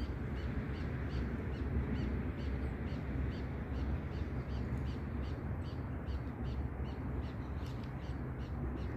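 A bird calling in a long, even series of short high notes, about three a second, over steady wind noise on the microphone.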